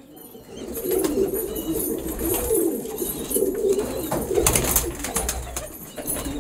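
Domestic pigeons cooing, low warbling coos repeating from about a second in, with a brief burst of rustling about four and a half seconds in.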